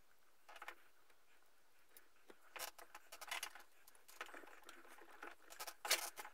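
Faint handling noises of a gloved hand working a brake line and its fitting among a motorcycle's frame and wiring: irregular rustles, scrapes and small clicks, the loudest near the end.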